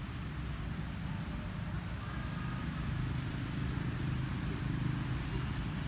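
A steady low engine rumble, growing slightly louder after about three seconds.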